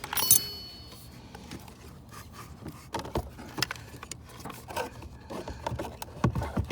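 A replacement blower motor and its small bolts handled and fitted into place by hand: a ringing metal clink at the start, then scattered light knocks, clicks and rubbing of metal and plastic parts.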